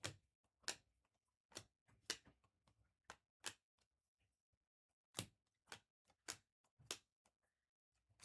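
Faint, crisp clicks of trading cards being flipped through and set down one after another, mostly about two a second, with a short pause in the middle.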